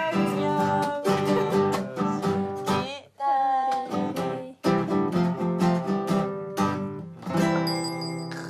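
Classical nylon-string guitar strummed in fast chords. It stops abruptly twice, about three and four and a half seconds in. It ends on a final chord left ringing and fading.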